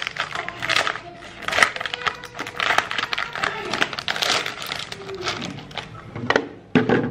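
Plastic wrapper of a packet of glucose biscuits crinkling and rustling in irregular bursts as it is torn open and tipped against a stone countertop. The loudest crackle comes near the end.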